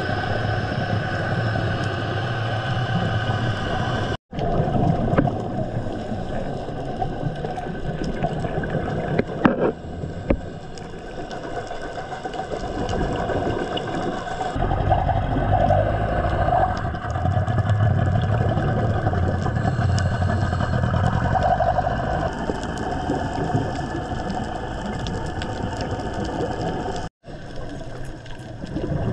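Underwater ambient noise picked up by a dive camera: a steady hiss and hum with faint tones and a few clicks, with a louder low rumble through the middle. The sound cuts out briefly twice.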